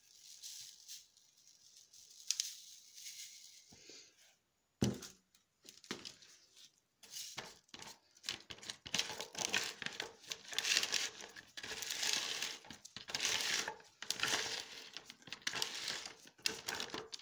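Lye poured into a plastic pitcher of ice cubes with a soft hiss, a single knock about five seconds in, then a spatula stirring the ice cubes, scraping and grinding them against the plastic in quick rasping strokes.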